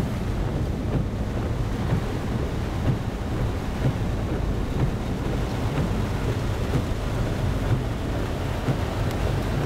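Heavy rain and gusting tropical-storm wind heard from inside a car: a steady, dense low rumble of noise.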